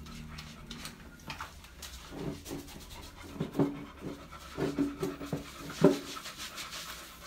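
Beagle panting in a run of short, quick breaths, mostly in the second half, the loudest near the end.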